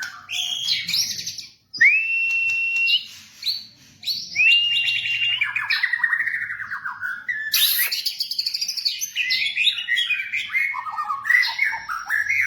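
White-rumped shama (murai batu) singing a varied song: clear held whistles, upward-sliding notes, and quick chattering runs of notes that grow denser near the end.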